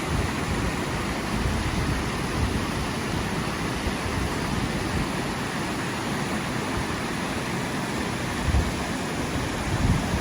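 Steady rushing of a river. A couple of low buffets of wind on the microphone near the end.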